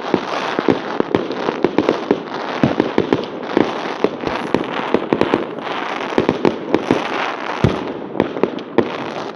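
Fireworks going off in a dense barrage: many sharp, irregular bangs and crackles several times a second, with one deeper, heavier boom near the end.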